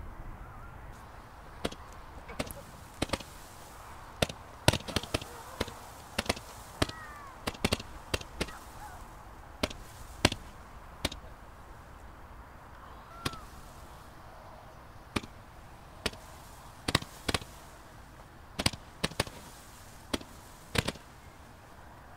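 Consumer fireworks going off: an irregular string of sharp cracks and bangs, sometimes several in quick succession, with a couple of brief faint whistles.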